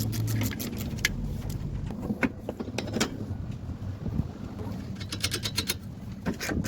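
Socket ratchet clicking in quick runs while snugging down fasteners, with a few separate sharp clicks and knocks over a steady low hum.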